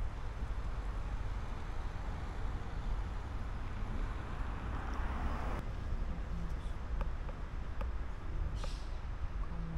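Steady low outdoor background rumble. A hiss builds over it and cuts off suddenly a little past halfway, and a short high hiss comes near the end.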